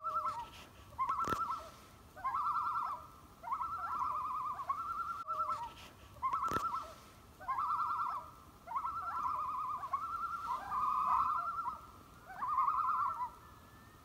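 A bird-like call repeated about ten times, each a short, rapidly wavering phrase at a steady pitch, with brief gaps between.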